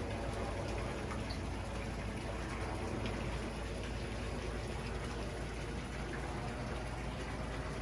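Steady rush and splash of water running into a koi pond, with no breaks.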